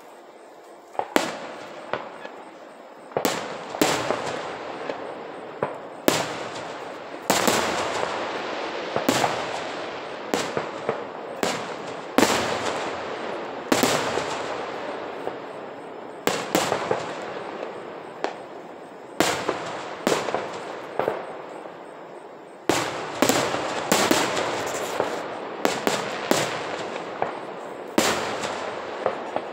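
Aerial fireworks shells bursting in quick succession: dozens of sharp bangs, about one a second and clustered closer at times, each trailing off over a second or so.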